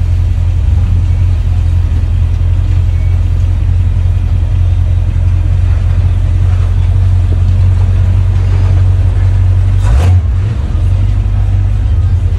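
Truck engine running with a steady, loud low rumble as the truck rolls slowly, heard from inside its cab. A single sharp knock about ten seconds in.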